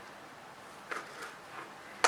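A few faint, short clicks and taps of a small hand tool working at a phone's ear-speaker grille, about a second in and again shortly after.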